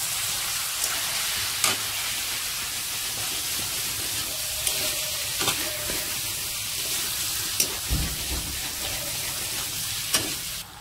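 Chicken pieces and ground spices sizzling in hot oil in a black kadai while a metal spatula stirs them, with a steady hiss and a sharp scrape or knock of the spatula against the pan every second or two.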